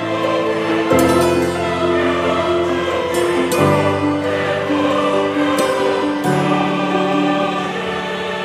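Music with slow, sustained chords that change about every two and a half seconds.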